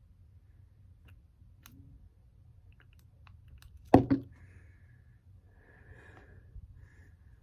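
Plastic pump bottle of hair oil being handled and pumped, with small clicks, a loud knock about four seconds in, then soft rubbing of oiled palms together.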